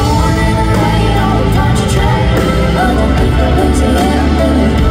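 Live country band playing: a woman's lead vocal over acoustic and electric guitars, fiddle and a steady bass line.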